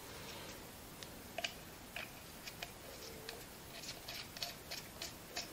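Faint, irregular light clicks and ticks of small metal TIG torch parts (tungsten electrode, copper collet and collet body) being handled and fitted into the torch head.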